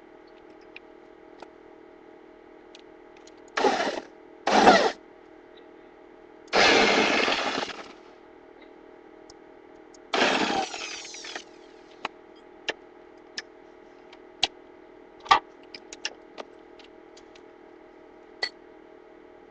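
A power tool run in four short bursts, the last one winding down as it stops, followed by scattered sharp clicks and taps.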